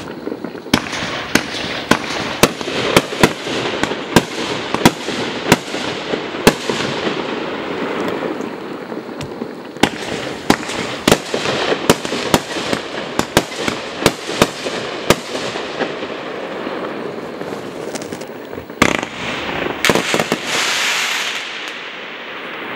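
Multi-shot aerial firework going off: a rapid run of sharp bangs, about two a second, over a steady hiss of burning effects. After a short lull comes a cluster of louder bangs, then a spell of dense crackling near the end.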